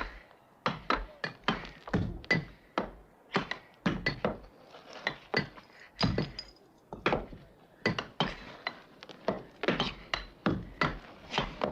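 Many overlapping knocks and thuds in an uneven rhythm, several a second, each with a brief ringing tail.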